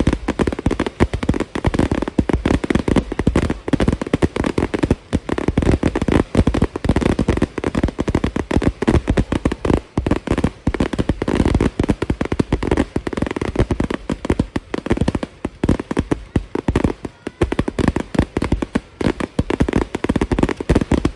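Fireworks display going off: a dense, unbroken barrage of overlapping loud bangs and crackles.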